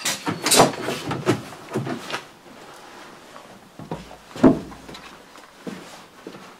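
Knocks, clatter and thumps of outdoor gear being handled and set down in a barn, with a cluster of sharp knocks in the first two seconds and one heavy thump about four and a half seconds in.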